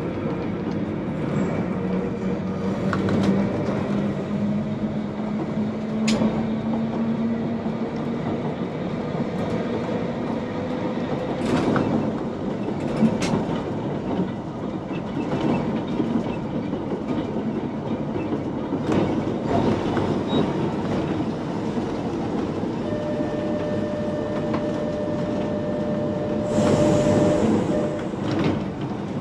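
Manx Electric Railway electric tramcar running along the track, heard from inside its front cab: a steady electric drive whine that rises slightly in pitch over the first ten seconds, with the wheels clicking over rail joints now and then. A higher steady whine comes in about three quarters of the way through, and the running noise swells near the end.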